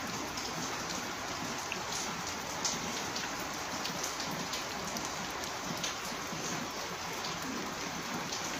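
Steady rain falling, an even hiss with scattered ticks of individual drops hitting surfaces.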